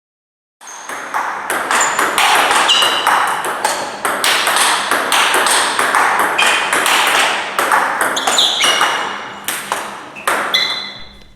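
Table tennis rally of fast drives: the ball cracks off the rackets, one faced with Dr Neubauer Tornado Extreme short pips, and bounces on the table in quick succession, each hit with a short high ping. It starts about half a second in and runs as a steady stream of rapid hits.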